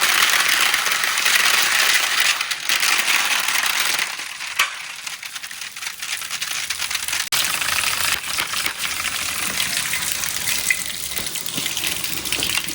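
Water gushing down a water-flow marble run, with marbles clinking against the track. The water is loudest for the first few seconds, eases off, then picks up again, and a few sharp clicks stand out.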